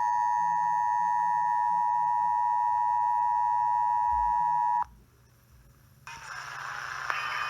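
Emergency Alert System attention signal: a loud, steady, shrill two-pitch tone, which cuts off abruptly about five seconds in. About a second later the broadcast audio of the alert starts.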